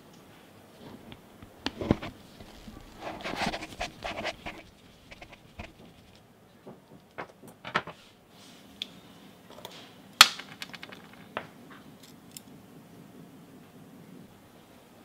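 Scraping, rustling and small metallic clicks as the parts of a rusty pipe cutter's handle are worked loose and set down by hand, with one sharp click about ten seconds in.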